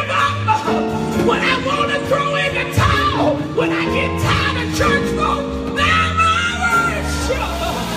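Live gospel worship music: sustained chords and a bass line that change every second or so, with a woman singing over them.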